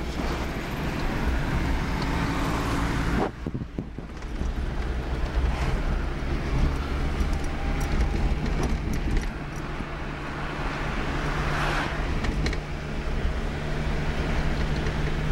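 Fiat Panda's engine and tyre noise heard from inside the cabin while driving at town speed, a steady low hum. The sound drops briefly about three seconds in, then picks up again.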